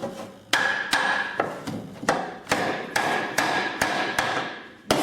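Hammer blows knocking on a mortise-and-tenon joint of a wooden frame: about ten steady strikes, a little over two a second, each ringing briefly.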